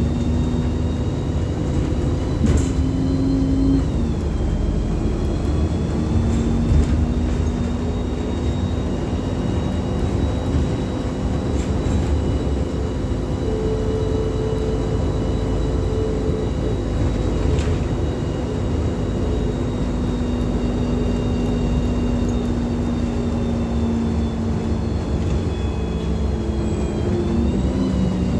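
Interior ride noise of a LiAZ-5292.65 city bus under way: a steady low rumble with a steady whine that shifts in pitch a few seconds in and again near the end, and a few brief knocks and rattles.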